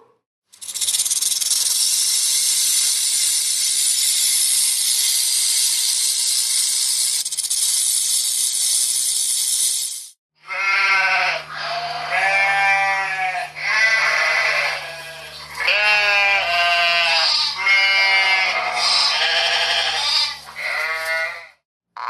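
A steady high-pitched hiss or buzz for about ten seconds, then an animal calling in a series of about a dozen bleating cries, each around a second long.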